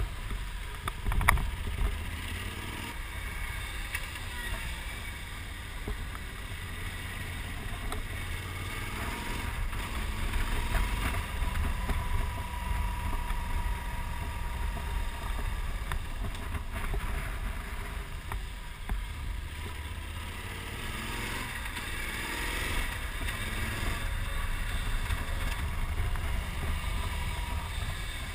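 Yamaha XT1200Z Super Ténéré's parallel-twin engine running under way on a winding mountain road, largely masked by steady wind rumble on the microphone, swelling and easing as the bike speeds up and slows for the bends. A sharp knock about a second in.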